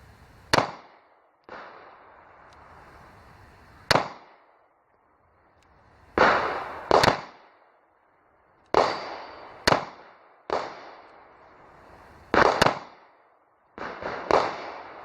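Ruger LC9S 9mm pistol firing five single shots, about three seconds apart. Other gunshots with echoing tails sound between them.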